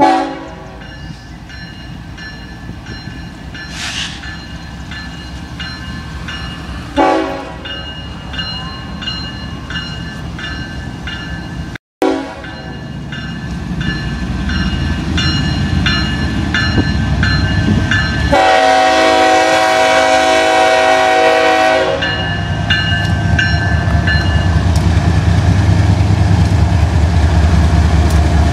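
BNSF freight train's diesel locomotives approaching and passing at a grade crossing, a bell ringing steadily the whole time. The locomotive horn sounds three short times, then one long blast of about three and a half seconds. Engine and wheel rumble grows loud near the end as the locomotives go by.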